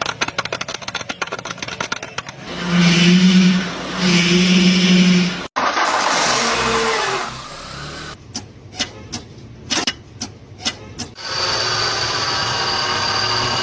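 Car mechanical noises in several short clips joined by cuts: rapid clicking first, then two strong pitched engine bursts, a few sharp knocks, and a steady running engine near the end.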